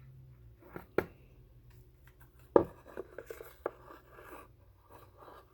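Handling noise from a Grendel P30 pistol: a few sharp clicks and knocks, the loudest about two and a half seconds in, followed by a quick run of small ticks.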